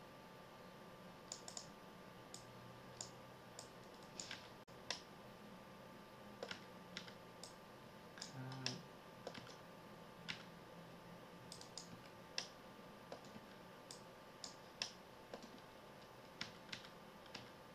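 Irregular sharp clicks of a computer mouse and keyboard, in places a couple a second, over a faint steady hum.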